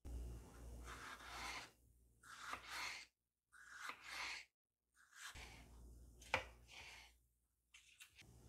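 Kitchen knife slicing a green bell pepper into strips on a wooden cutting board, in four bursts of cutting with short pauses between them and one sharp click about six seconds in.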